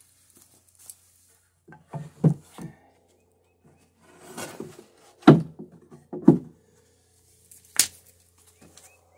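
Wooden boards being handled and set down, knocking together in a few dull wooden thunks: a small cluster about two seconds in, the two loudest a second apart past the middle, and a sharp click near the end.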